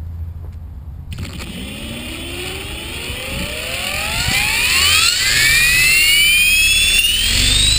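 Electric motor and rotor head of an Align T-Rex 450 Pro RC helicopter spooling up from rest: a whine starts about a second in and rises steadily in pitch, growing louder, over a low rumble.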